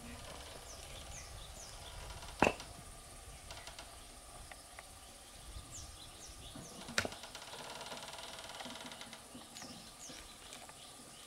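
Two sharp single knocks, about two and a half and seven seconds in, over a quiet background of short, high bird chirps.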